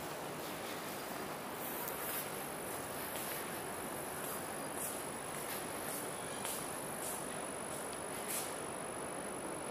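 Steady high-pitched insect drone, with short hissy sounds about every second, over a steady wash of background noise.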